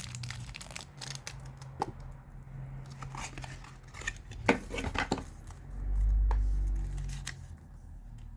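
Packaging of a small USB Wi-Fi adapter being handled: scattered clicks, taps and rustles of plastic and cardboard. A sharper cluster of clicks comes about four and a half seconds in, then a low bump near six seconds.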